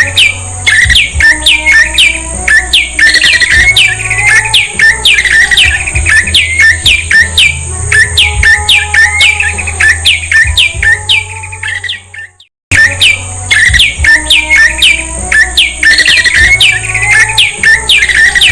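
Prinia (prenjak) song: a fast run of sharp, downward-sweeping chirps, about four a second, repeated without pause. It cuts out for a moment about twelve seconds in and starts again the same way, like a looped recording, over a steady low hum and a thin high whine.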